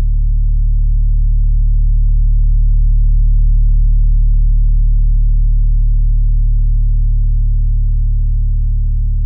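Polyphonic theremin holding several low, steady, pure tones together as a deep drone. It swells gently in loudness around the middle and eases off toward the end.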